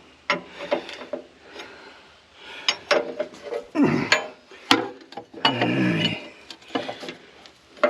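Wrench and metal hose fittings clinking and knocking in a string of sharp hits while a skid steer's hydraulic hose is worked loose or fitted, with two longer grating scrapes near the middle.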